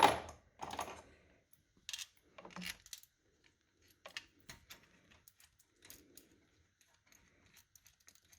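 Scattered light clicks and taps of metal parts as a valve spring compressor tool and its 5/16 bolts are positioned and threaded by hand on a V8 cylinder head, the loudest knocks in the first second.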